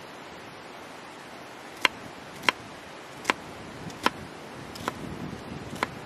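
Kitchen knife slicing a red onion on a wooden cutting board: six sharp knocks of the blade on the board, a little under a second apart, starting about two seconds in.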